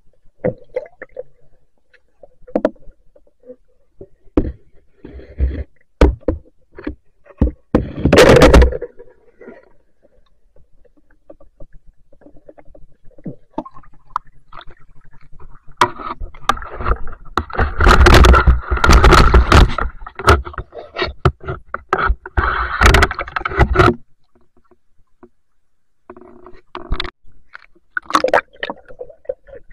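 Water sloshing and bubbling around an underwater camera as a spearfisher moves through a shallow river, with scattered knocks and clicks. About halfway through comes a long, loud spell of churning water lasting several seconds.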